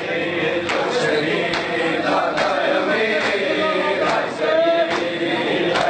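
A group of men chanting a Muharram noha in chorus, with sharp unison chest-beating (matam) striking about once a second in time with the chant.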